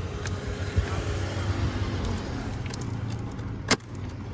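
Small clicks and clinks of hand work fitting a car battery's terminal clamp, over a steady low rumble. One sharp click comes near the end.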